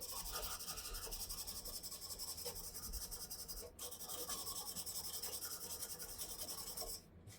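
240-grit mesh sanding net held against walnut spinning on a Shopsmith Mark 7 lathe: a fast, even, pulsing rubbing hiss. It breaks off briefly about halfway and stops just before the end.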